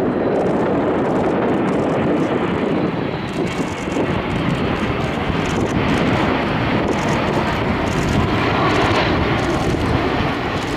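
Boeing 787-9 airliner on final approach with its landing gear down, its turbofan engines giving a steady roar that takes on a stronger hiss in the second half as the plane draws nearer.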